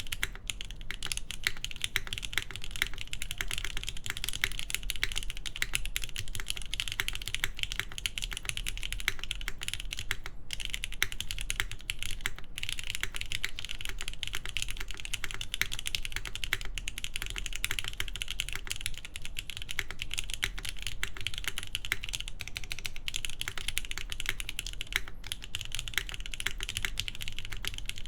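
Continuous fast typing on a gasket-mounted mechanical keyboard with lubed Gateron Milky Top Yellow linear switches, a polycarbonate plate and GMK keycaps. It is a dense run of keystroke clacks, with a few brief pauses.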